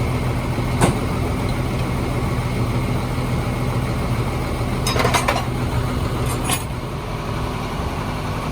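An engine running steadily at idle, with a sharp metallic click about a second in and a short burst of clicking and clatter about five seconds in.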